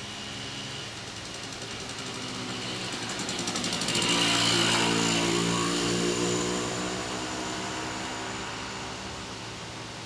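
A motor vehicle's engine passing by: it grows louder with a fast pulsing beat, peaks about four to six seconds in, then fades away.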